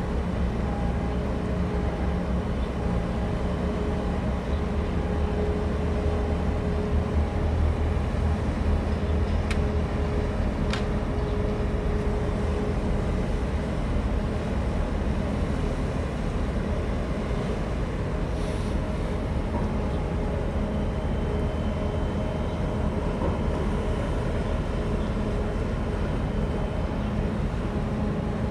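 Harbour tugboat's diesel engines running steadily: a low, even drone with a steady hum over it. Two short clicks come about ten seconds in.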